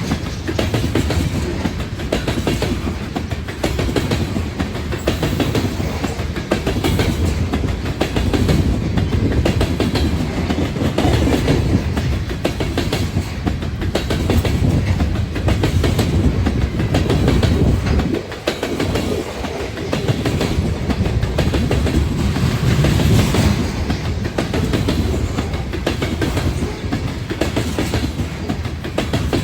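A train rolling past, its cars' wheels clattering steadily over the rail joints.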